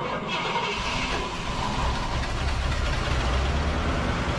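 Cadillac engine idling steadily just after it fires, on a cold start after the car has sat since 2001.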